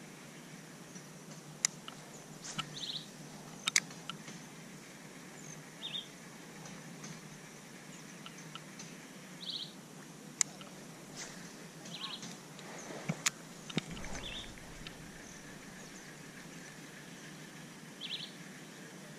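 A bird calls repeatedly outdoors, giving short trilled bursts about every three seconds. Several sharp clicks over a steady low background noise are the loudest sounds.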